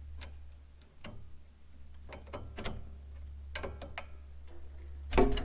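Irregular metal clicks and taps of hand tools on carburetor linkage as it is detached, a cotter pin being worked free, with a louder clatter near the end. A steady low hum runs underneath.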